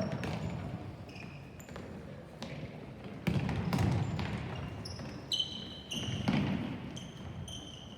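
A ball bouncing and being kicked on a hard court during a youth soccer game, with irregular thumps and many short, high squeaks like shoes on the floor, over background voices.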